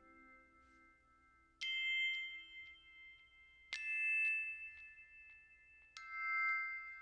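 Music: three bell-like struck notes, about two seconds apart, each ringing on for a while.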